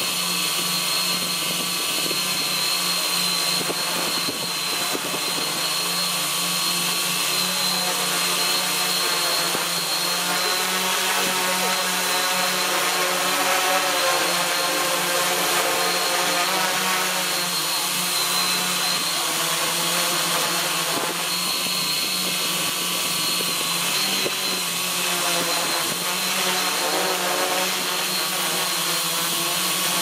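Hexacopter's six electric motors and propellers whining steadily, heard from the camera carried on board, with several tones wavering up and down as the motors keep adjusting their speed in flight.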